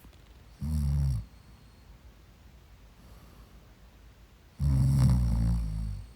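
Two snores from a sleeper: a short one less than a second in, then a longer, slightly louder one about four and a half seconds in.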